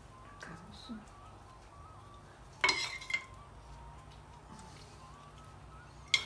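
A spoon clinking twice against a dish, each a short ringing chink, about two and a half seconds in and again near the end, between faint soft handling sounds.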